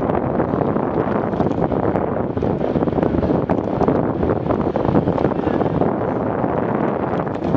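Wind buffeting the microphone of a camera moving alongside a group of road cyclists: a loud, steady rumbling rush with irregular flutter.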